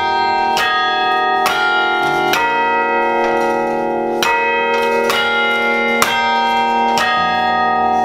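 Carillon bells played from the baton keyboard: a slow tune of single struck notes about once a second, each bell ringing on under the next.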